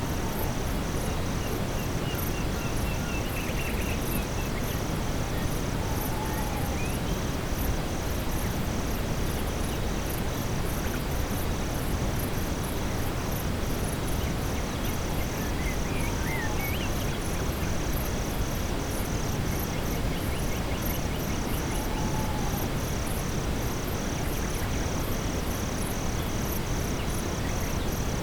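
Steady brown noise under a night-time forest soundscape: insects chirping in a steady pulsing rhythm, with a few short falling calls every several seconds.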